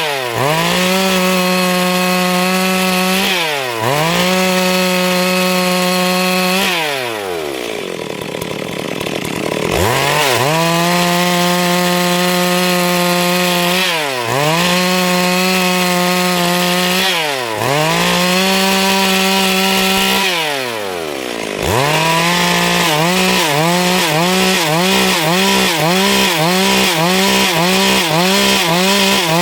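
Stihl MS 382 two-stroke chainsaw cutting wood at full throttle, its pitch falling as the throttle is released and rising again every three to four seconds. Early on it drops to a low idle for a few seconds before revving back up, and near the end the engine note wavers about twice a second under load.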